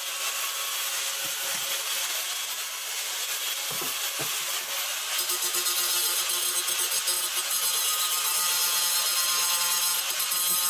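A tool scraping or sawing against the workpiece, a steady rasping hiss that grows denser and more even from about halfway through, with two soft knocks about four seconds in.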